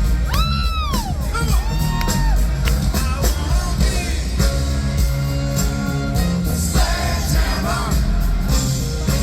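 A rock band playing live in a stadium, with singing, a lead line sliding up and down in pitch near the start, and yells and whoops from the crowd.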